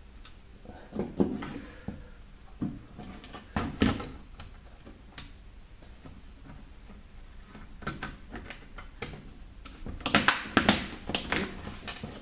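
Small plastic clicks and knocks as a tablet's buttons and case parts are handled and fitted back together, with a cluster of louder clicks about ten seconds in.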